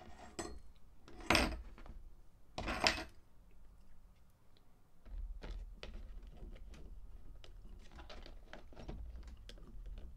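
Clock parts being handled on a tabletop: two sharp knocks in the first three seconds, then a run of light clicks and taps as screws are fitted into the clock's back cover.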